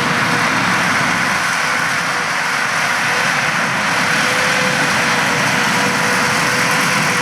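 Peanut-harvesting machinery running steadily: an even, loud engine and machine noise with a faint steady whine over it.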